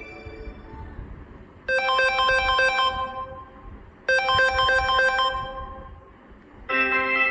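Samsung Galaxy S10e ringtones: one tone fades out, then a ringtone of a quick run of bright chiming notes plays twice, about two and a half seconds apart. A different ringtone starts near the end.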